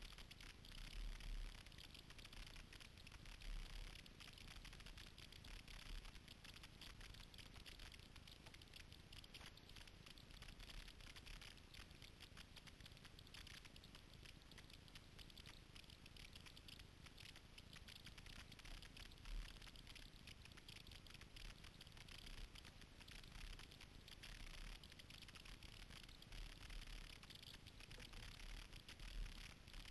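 Faint splashing and pattering of water from kayak paddle strokes, a steady crackle of drips, with a few low bumps.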